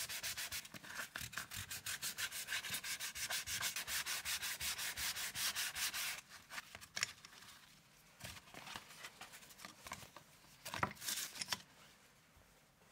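Hardwood knife-handle slab sanded by hand, rubbed back and forth on a sheet of sandpaper in quick, even strokes, lightly sanding rust buildup and grit off the wood. The sanding stops about six seconds in, and a few light knocks and rustles follow as the pieces are handled.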